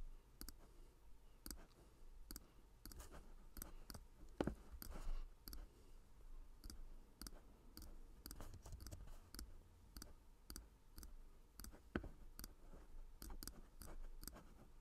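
Faint, irregular clicks of a computer mouse placing points while drawing, over a low steady hum.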